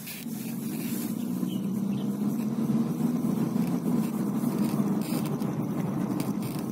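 Car engine and road noise heard from inside the cabin while driving: a steady low drone that grows a little louder over the first second.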